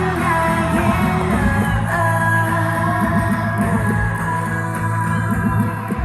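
Live K-pop song at a concert sound check: singing over a band track with guitar and a steady bass beat, played through the hall's loudspeakers.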